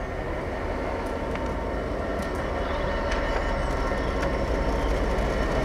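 A train running: a steady low rumble with a faint steady whine, growing slowly louder, with a few light clicks.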